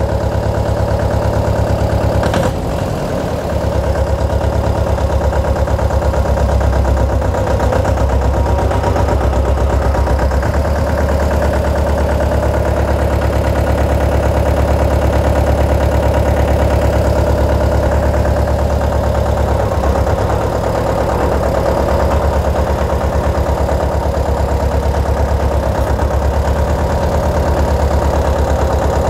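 Mahindra Jivo 245 DI tractor's diesel engine running steadily, with a brief dip about two and a half seconds in.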